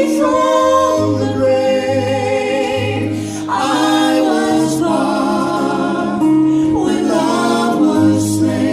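A small vocal group of female and male voices singing a song in harmony, with guitar accompaniment and sustained low notes changing about once a second.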